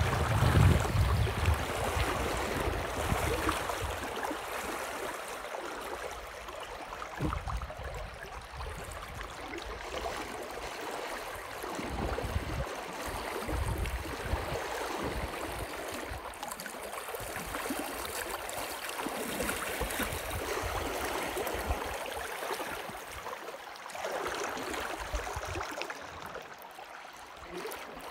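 Water swishing and splashing around a wading angler's legs as he pushes through a slow, deep river, with low rumbles of wind on the microphone, strongest at the start.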